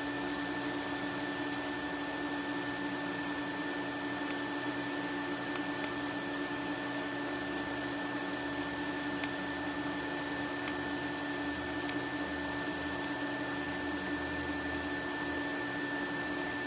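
Argon-shielded TIG arc on 3/16" mild steel, with ER70S-2 filler rod being fed, hissing steadily throughout. Underneath runs the steady hum of a Miller Coolmate 1.3 torch cooler's pump and fan, with a few faint ticks.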